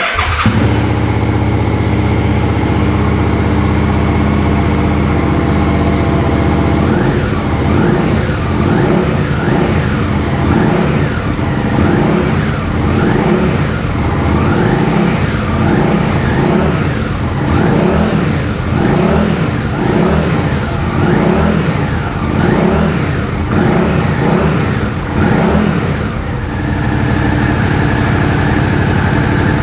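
Suzuki SV650's V-twin engine, breathing through an aftermarket Scorpion Red Power exhaust, starts up and idles steadily. From about seven seconds in it is blipped on the throttle over and over, about once a second, before settling back to steady running near the end.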